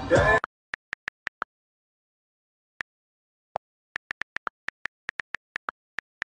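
iPhone on-screen keyboard clicks as a comment is typed: about twenty short ticks in quick, irregular runs, a few lower-pitched than the rest. Hip hop music from the live stream cuts off suddenly about half a second in.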